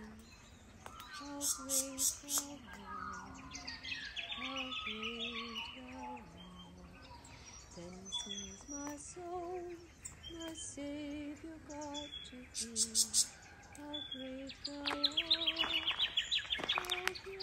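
Small finches chirping and twittering in a gum tree, in quick clusters of high chirps with a long fast trill near the end. A soft, slow melody of held notes plays beneath them.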